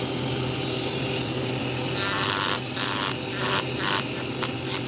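Handheld rotary carving tool running steadily, with four short bursts of grinding about two seconds in as the bit cuts into wood, then two sharp clicks near the end.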